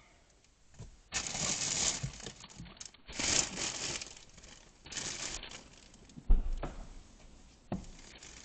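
Bursts of rustling and crinkling handling noise close to the microphone, with a sharp thump a little after six seconds and a shorter knock near the end.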